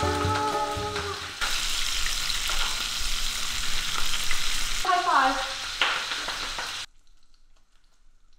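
Steak sizzling in a pan of foaming butter with garlic and thyme while it is spoon-basted: a loud, even frying hiss that gets louder about a second and a half in, with a brief squeal about five seconds in. The sizzling cuts off suddenly near the end.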